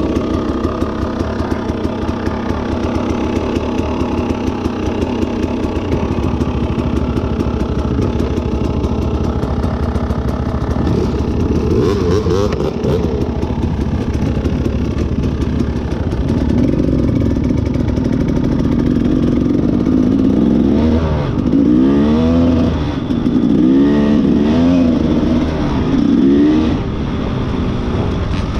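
Off-road motorcycle engine running. It revs up about twelve seconds in, then rises and falls in revs several times in quick succession over the last third, with some clatter.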